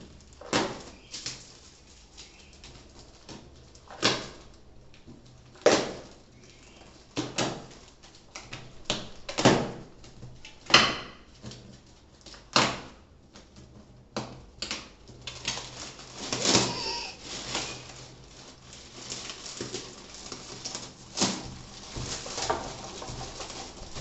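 Plastic wrapping being pulled and crumpled off a memory foam mattress: sharp, irregular crackles and rustles every second or two, with a longer stretch of rustling about two-thirds of the way through.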